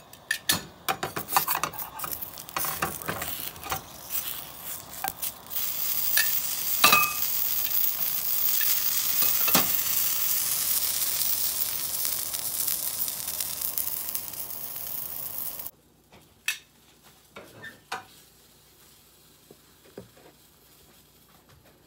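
Aidells chicken sausages sizzling in a frying pan as they brown once the simmering water has boiled off: sharp crackling pops for the first few seconds, then a steady high sizzle. It cuts off about 16 seconds in, followed by a few light clicks and taps of tongs.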